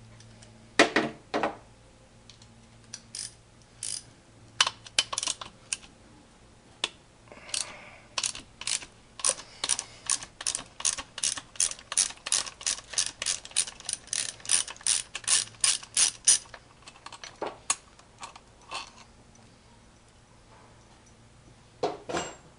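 Hand socket ratchet clicking as bolts on the engine are loosened: a few short bursts of clicks, then a steady run of about two to three clicks a second for some eight seconds, then a few more scattered clicks.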